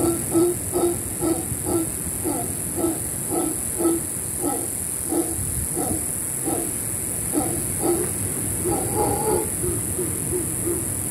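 Mantled howler monkeys giving a run of short, deep grunts, about two a second, with a few higher calls bunched together near the end. A steady high-pitched hiss sits behind them.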